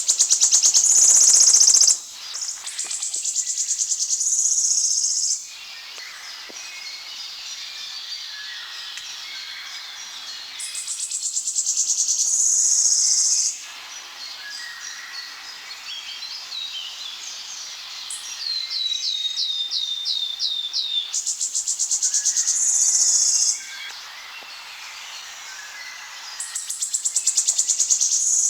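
Wood warbler singing its song over and over: a quickening run of high ticking notes that speeds into a shivering trill, growing louder before it stops abruptly, about five times. Softer chirps of other forest birds fill the pauses, and partway through there is a short run of about seven falling whistled notes.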